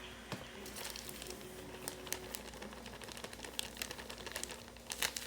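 Light rustling and scattered small clicks of wheat flour being scooped with a measuring cup and poured into a bowl.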